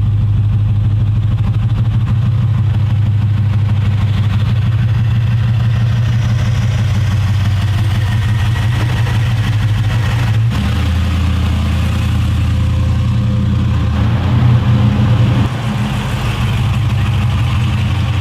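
2004 Jeep Grand Cherokee driving on a test run after new front sway bar links were fitted: a steady engine and road drone with no clunking from the front end, which now sounds quieter. The engine note shifts about ten seconds in and swells briefly near the end.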